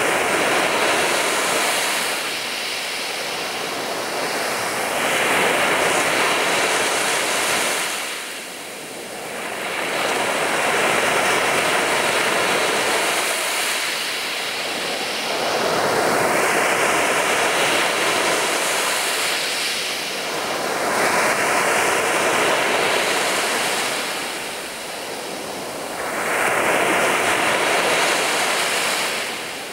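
Sea waves breaking on a beach. The surf rises and falls in slow swells about every five or six seconds.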